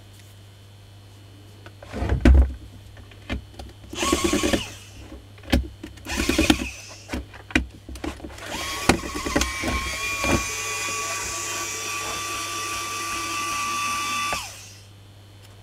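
Makita 9237CB polisher's electric motor switched on, whining up to speed and running steadily for about five seconds, then switched off and winding down. Before it, a few knocks and short bursts of noise as the tool is handled.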